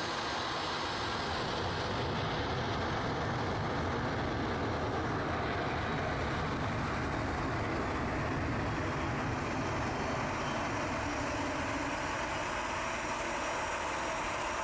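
Airbus A320 airliner's jet engines running on the runway: a steady rushing noise with a low rumble underneath.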